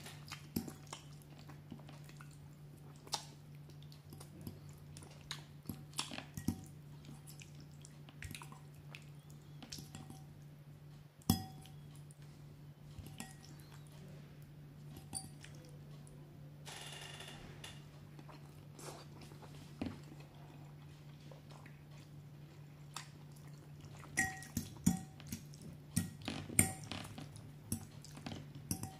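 Metal fork clinking and scraping against a ceramic bowl while twirling spaghetti in tomato sauce, with chewing in between. Sharp clinks come scattered throughout, the loudest about eleven seconds in and a quick cluster near the end, over a low steady hum.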